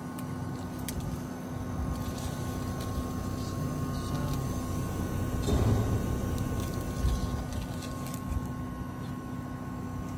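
Steady machine hum with a few held tones over a low rumble, and a few faint ticks.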